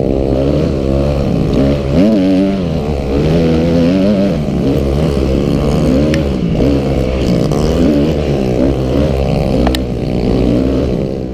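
Honda CRF250 four-stroke single-cylinder dirt bike engine, revving up and down again and again as the throttle is opened and closed while riding, with two short sharp knocks, one about six seconds in and one near the end.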